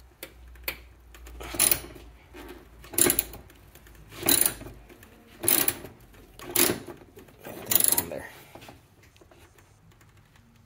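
Hand socket ratchet loosening a bolt, clicking in about six short bursts roughly a second apart as the handle is swung back and forth; the clicking stops about two-thirds of the way in.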